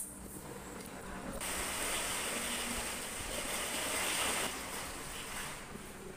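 Steady hiss of rain, much louder for about three seconds from a second and a half in, with a short click at the very start.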